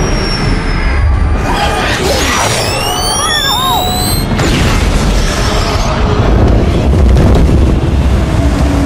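Sci-fi film action sound mix: continuous deep booming rumble under music, with rising swooping effect sounds about two to four seconds in and the loudest booming swell around six to seven seconds in.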